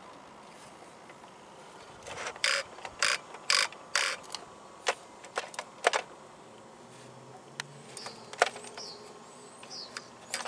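Electric RC car's drivetrain giving short mechanical spurts, about four in two seconds, then scattered sharp clicks and a brief low hum. This is the car trying to respond when throttle is applied and then cutting out, a radio or power fault.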